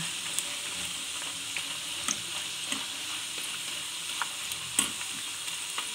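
Raw banana chips deep-frying in olive oil, a steady high sizzle. A few short clicks of metal tongs against the pan are heard as the slices are moved about.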